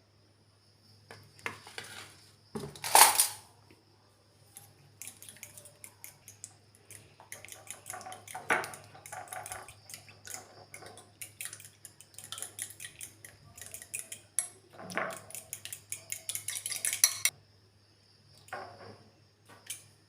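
Metal utensils clinking and scraping against cookware: a loud clatter about three seconds in, then a long run of quick scraping and tapping strokes that stops a few seconds before the end.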